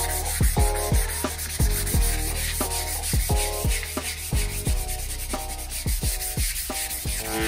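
Sandpaper rubbed by hand back and forth over the bare English willow of a cricket bat, a dry scratchy rubbing. Background music with a steady beat of about two kick drums a second plays under it.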